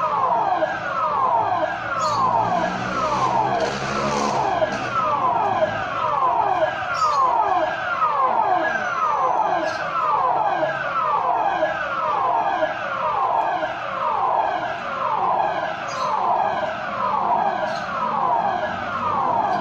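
City emergency public warning siren sounding in a system test: a loud, continuous series of falling sweeps, about one a second, each sliding from a high pitch down to a lower one.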